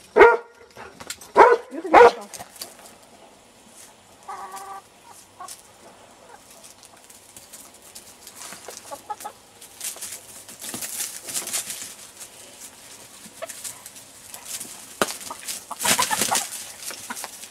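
Domestic hens clucking, with a few loud short calls in the first two seconds and a shorter call at about four seconds. From about ten seconds in, fir branches rustle against the microphone, loudest near the end.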